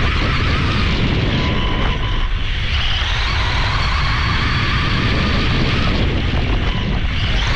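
Onboard sound of a Losi Promoto MX 1/4-scale electric RC dirt bike running on dirt: heavy wind buffeting on the mounted camera's microphone over the whine of the brushless motor and drivetrain, which rises and falls with the throttle.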